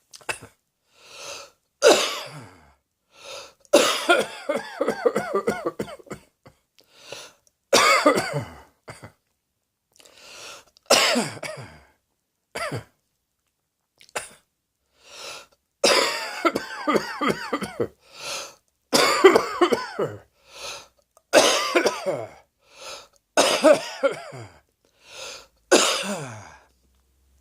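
A person coughing over and over in fits of rapid coughs separated by short pauses, some coughs trailing off in a falling vocal sound.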